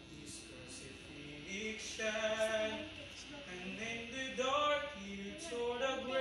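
A man singing a slow worship song in long held notes, with the gliding, drawn-out phrases of a hymn-like ballad.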